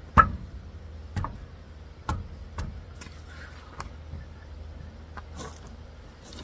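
A series of sharp metal knocks and clanks from hand tools working on a truck's rear brake assembly. The knocks come at uneven intervals about a second apart, and the first is the loudest.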